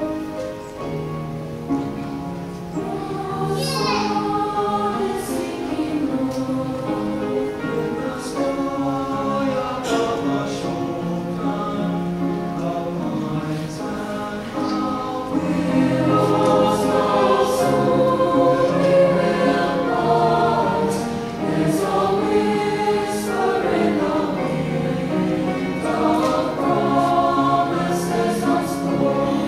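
Mixed choir singing a sustained, slow-moving piece, growing louder about halfway through.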